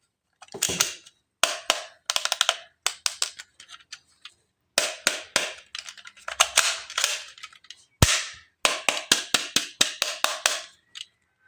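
Sharp plastic clicks and rattles from toys being handled, coming in quick clusters of several clicks with short pauses between them.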